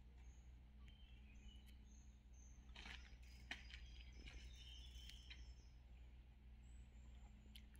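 Near silence: faint short, high bird chirps over a low steady hum, with a few soft clicks about three seconds in.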